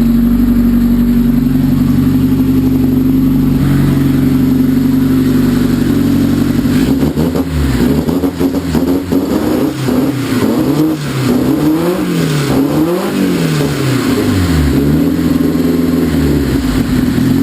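Freshly rebuilt Audi engine on its first startup, idling fast while still cold. About seven seconds in it is blipped up and back down about six times, then it settles back to idle near the end.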